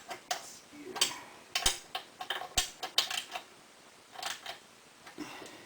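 Hand tools on metal: a socket ratchet and wrench clicking and clinking in short irregular bursts while bolts are fastened on an aluminum swing arm skid plate.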